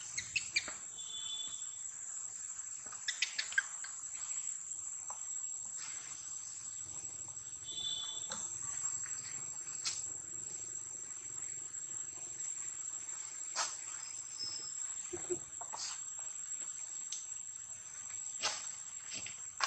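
Steady high-pitched drone of insects, with scattered soft clicks and a couple of brief high chirps.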